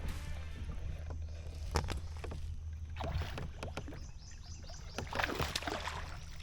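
Handling sounds on a fishing kayak on the water: a few separate knocks and brief splashy rustles, over a steady low rumble.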